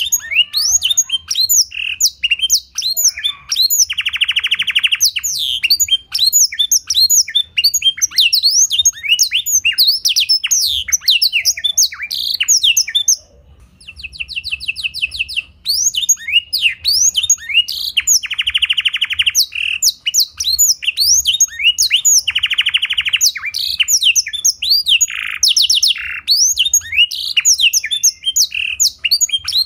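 Domestic canary singing a continuous, fast song filled with blackthroat (black-throated canary) phrases: rapid high down-slurred notes and trills, broken by several loud buzzing rattles. The song pauses briefly about halfway through.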